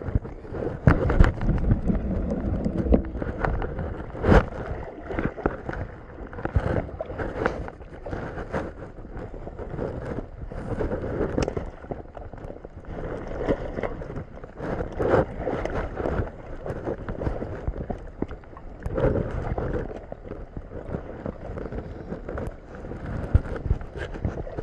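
Water sloshing and splashing, with irregular knocks and bumps and wind buffeting the microphone.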